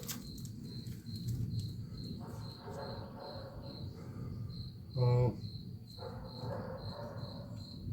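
Crickets chirping in a steady, even pulse, about three chirps a second, with one short, louder low voice-like sound about five seconds in.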